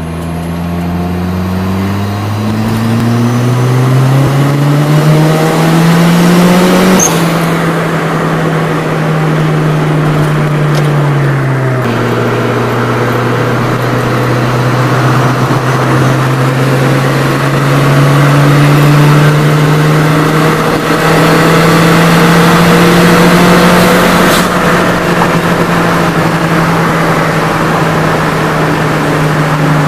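Turbocharged Nissan Sentra GA16DE four-cylinder engine heard from inside the cabin, revving up through a gear and dropping sharply in pitch at a shift about seven seconds in. It eases down again a few seconds later, then pulls steadily at speed with a slow rise. The owner believes it is still short of fuel under boost, or that the MAF sensor is maxed out.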